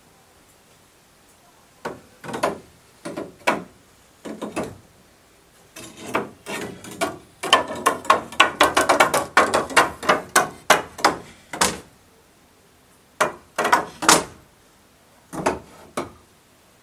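A series of sharp knocks: scattered taps at first, then a quick run of about five knocks a second in the middle, then a few more single knocks.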